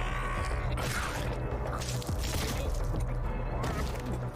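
Anime soundtrack: tense background score with several sharp, clattering sound effects between about one and three and a half seconds in.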